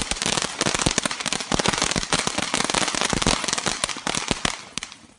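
Ravikannan 'Tweet' crackling fountain firework burning: a hiss of sparks thick with rapid crackles and pops, dying down near the end to scattered last crackles.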